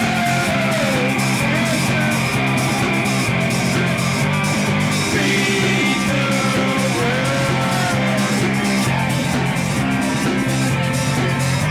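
Rock music with guitar, drums and a bending melody line, playing at a steady beat.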